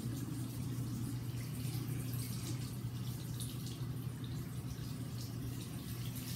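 Bathroom sink tap running, its water splashing over hands scrubbing a squishy rubber toy under the stream, over a steady low hum.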